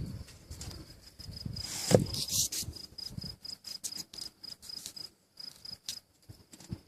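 A cricket chirping in an even, rapid pulse. There is a single loud thump about two seconds in, followed by some rustling and scattered clicks of handling.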